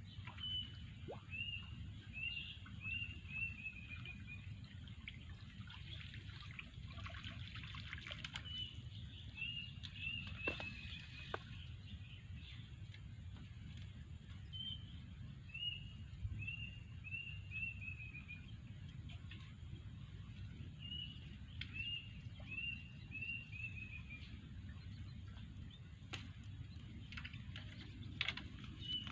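A songbird repeats one song phrase about five times, roughly every six seconds: a quick run of six to eight down-slurred whistled notes that slope slightly downward. A steady low rumble sits beneath it, with a few faint knocks.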